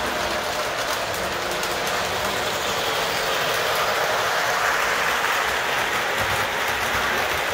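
Model train running on the layout: a steady whirring rumble of metal wheels rolling on the track and the locomotive's electric motor.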